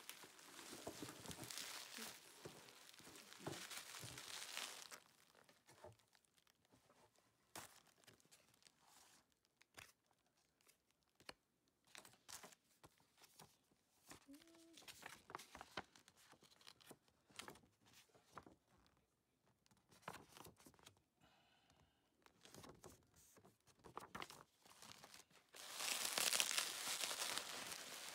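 Bubble wrap and plastic packaging crinkling and rustling as hands unwrap it. The crinkling is loudest for the first few seconds and again near the end, with scattered light taps and clicks of handling in between.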